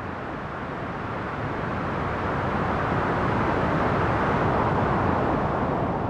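App-generated white noise for baby sleep: a steady, even hiss with a low rumble under it. It grows louder and brighter over the first few seconds as the sound is reshaped.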